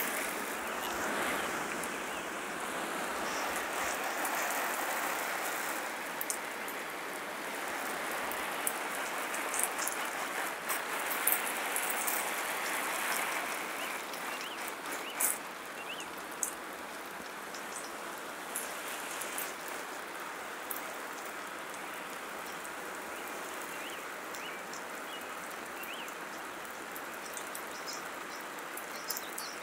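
Water spraying from a garden hose, a steady hiss of spray landing, with scattered sharp ticks of drops striking, louder in the first half.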